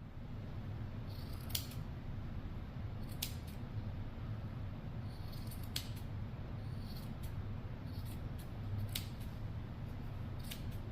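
Scissors snipping through yarn, trimming a yarn pom-pom to even it out: separate sharp snips spaced a second or two apart, over a steady low hum.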